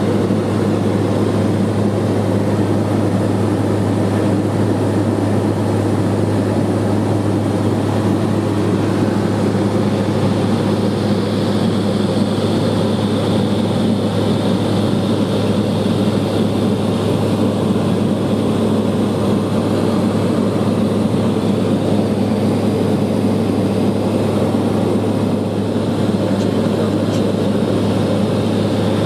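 Cessna 210 Silver Eagle's single turboprop engine and propeller droning steadily in the cabin in flight, with a strong low hum.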